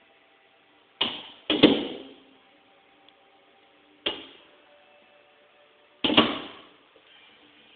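A pheasant striking the window glass from outside: sharp knocks on the pane in a few groups, about a second in, a second and a half in, four seconds in and six seconds in, each ringing briefly in the glass.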